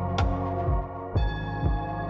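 Ambient background music: sustained chords over a slow low pulse about twice a second. A bright struck note rings just after the start, and higher tones come in about halfway through.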